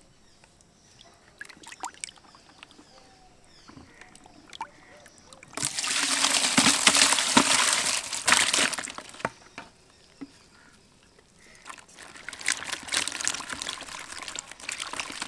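Water and live climbing perch poured from a bucket into a bamboo basket: a loud rush of water for about three seconds, then the fish flapping and scrabbling against the bamboo weave in a run of sharp crackles near the end.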